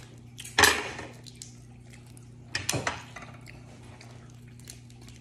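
Dungeness crab shells and plate handled by hand while eating a crab boil: two short crackling bursts, about half a second in and near three seconds in, with a few faint clicks, over a steady low hum.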